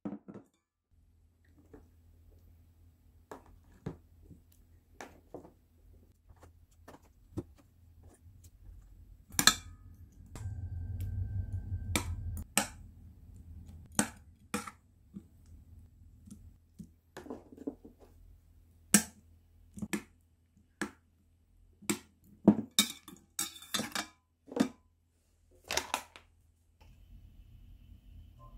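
Metal chopsticks clicking and tapping against a stainless steel bowl as kimbap slices are set into beaten egg; scattered light taps, with a brief low hum about halfway through.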